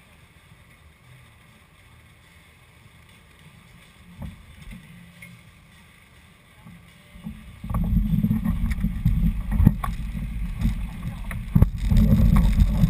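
Off-road 4x4 moving through mud: a faint low rumble, then about seven and a half seconds in a loud low rumble sets in and runs on with sharp knocks and jolts as the vehicle lurches forward.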